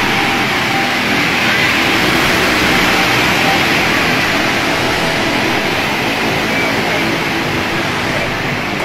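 Surging waves of muddy water rushing in over a bank, a loud, steady rushing noise without let-up.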